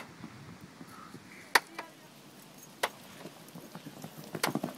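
Sharp knocks from jugger play: three single knocks about a second and a half apart, then a quick flurry of clacks near the end.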